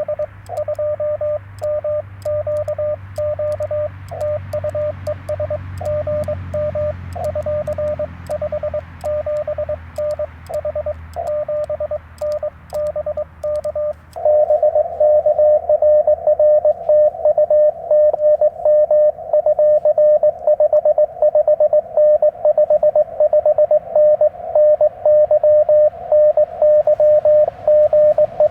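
Morse code (CW) tones at about 600 Hz from a Yaesu FT-891 transceiver. For the first half the keying comes over a hiss of band noise, typical of a station being received; about halfway in it turns louder, faster and clean, typical of the operator's own sending heard as the radio's sidetone.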